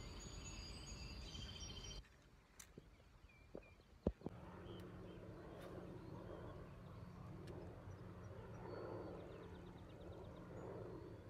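Faint outdoor ambience: light steady noise with a low hum, and a single sharp click about four seconds in.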